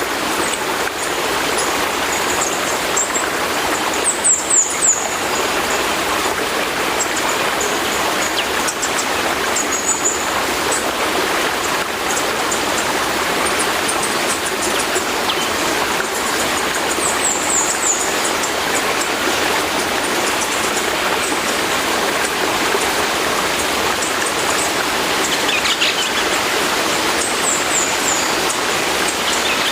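Steady rushing water, an even wash with no distinct rise and fall of waves. Short high bird chirps cut through it about four times.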